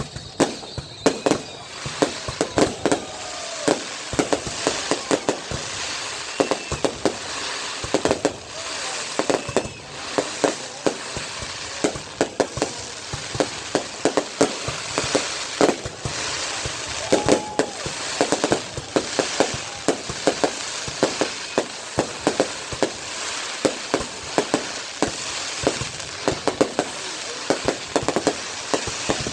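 Fireworks going off in a dense, continuous barrage: many sharp bangs a second over steady crackling.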